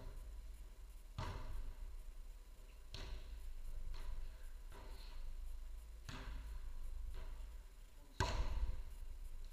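A footvolley ball struck back and forth in a rally: about five sharp thuds one to two seconds apart, each echoing briefly in a large hall, the loudest near the end. A low steady hum runs underneath.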